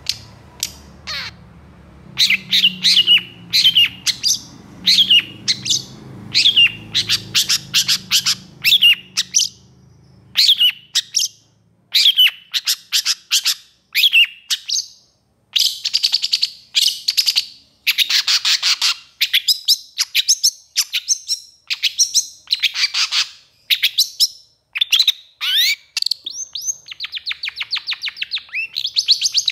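Long-tailed shrike (pentet) calling in harsh, rapid chattering bursts, one phrase after another about once a second with short gaps: the agitated song that keepers play to fire up other shrikes.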